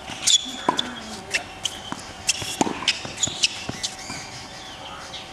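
Tennis balls on a hard court: a series of sharp knocks from bounces and racket strikes, about ten in the first four seconds, then quieter.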